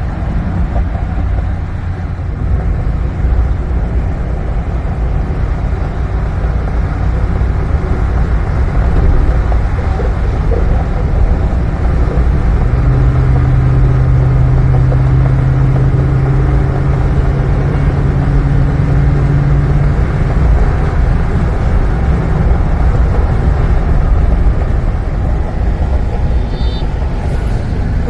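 Steady road and engine rumble heard from inside a car moving at highway speed. A steady low hum rises over it for several seconds around the middle.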